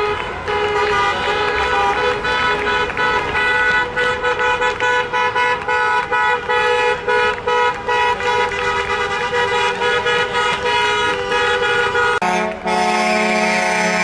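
Vehicle horns honking in rapid repeated toots, with several horns overlapping. About twelve seconds in, a deeper horn takes over and sounds steadily.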